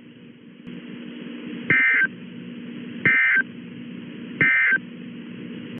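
Emergency Alert System end-of-message signal: three short bursts of buzzing two-tone data (SAME digital tones), about a second and a half apart, over a steady low hum.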